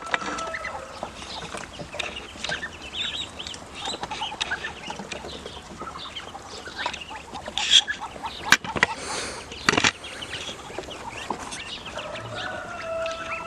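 Ducklings peeping with many short, high chirps, with a few sharp knocks about halfway through.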